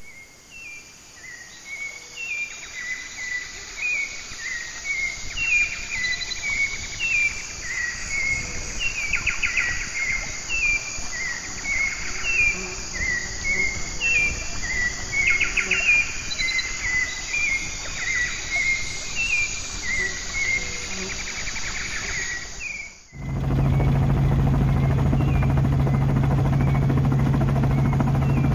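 Rainforest soundscape: birds calling in many short falling chirps over a steady hiss of insects. After about twenty-three seconds it cuts suddenly to the loud, steady drone of an aircraft's engine heard from inside the cabin.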